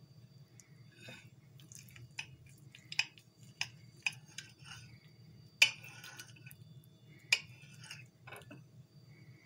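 Metal fork and knife clinking and scraping against a porcelain plate while cutting boiled lamb neck: a string of sharp clinks, the loudest a little past halfway.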